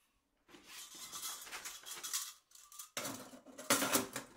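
Hands rummaging in a fabric carry bag and handling the titanium stove's stowed metal parts: rustling with light metallic clatter, in two bouts, the second louder, starting about three seconds in.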